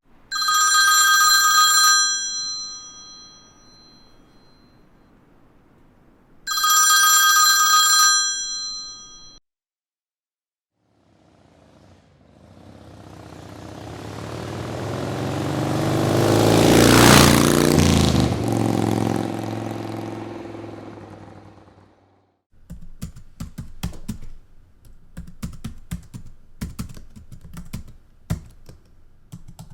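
Telephone bell ringing in two bursts. Then a motorcycle passes by, swelling to a peak and fading away as its pitch drops. Then rapid, irregular clicking of typing on a computer keyboard.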